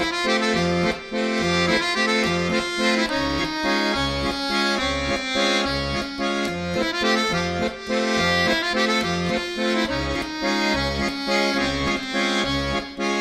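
Accordion music in a lively traditional style, with a steady bouncing beat of alternating bass notes and chords under the melody.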